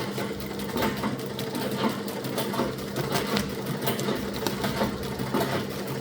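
Vintage sewing machine running, its needle stitching through a sheet of practice paper with a clatter of many small clicks.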